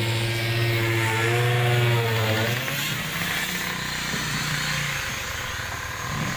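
A motor running with a steady hum, its pitch wavering up and down before it fades away about two and a half seconds in, leaving outdoor background noise.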